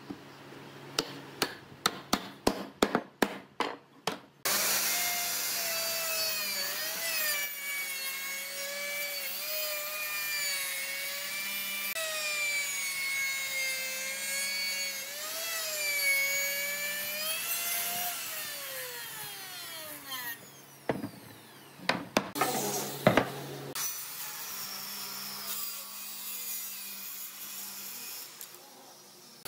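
About ten sharp knocks of a wooden mallet on wooden frame joints, then a handheld router starts and cuts along a pine frame for about thirteen seconds, its pitch wavering as the bit meets the wood, before it winds down with a falling whine. A few more loud knocks follow, and a quieter cutting noise runs near the end.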